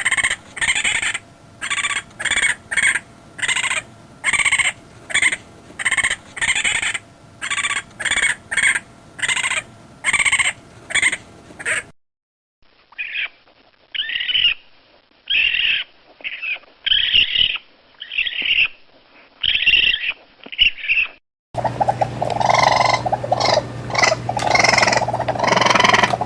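Raccoon calls from three separate recordings: a run of short calls about twice a second, then irregular bursts of calls after a brief gap, and a denser run of calls starting about 21 seconds in.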